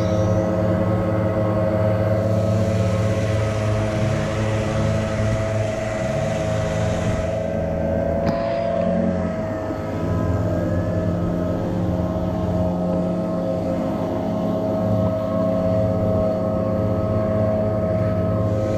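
Several backpack leaf blowers running together at full throttle: a steady engine drone made of overlapping pitches that shift slightly as the operators work the throttles.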